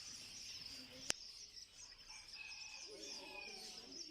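Many small caged birds chirping and twittering at once, a dense, steady high-pitched chatter. A single sharp click sounds about a second in.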